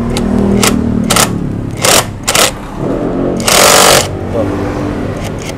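Camshaft sprocket bolt on a Yamaha NMAX engine head being undone with a 12 mm tool, likely an impact wrench: a few short sharp knocks, then a loud half-second burst of rapid hammering about three and a half seconds in as the bolt breaks loose.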